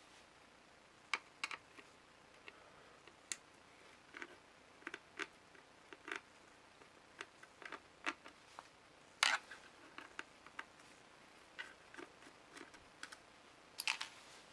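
Small screwdriver working screws out of a circuit board in a plastic card-terminal case: irregular light clicks and ticks of the tip in the screw heads and of screws and plastic being handled, with a louder click about nine seconds in and a quick cluster near the end.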